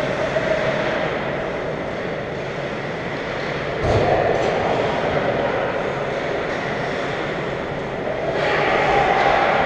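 Echoing ice-rink din during a hockey game: a steady rumbling noise of distant play in a large arena. There is a thud about four seconds in, after which it grows louder, and it swells again near the end.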